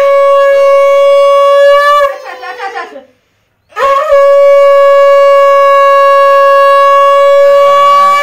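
Conch shell (shankha) blown in two long, steady blasts at one pitch. The first tails off about two seconds in, and the second starts about four seconds in and holds to the end.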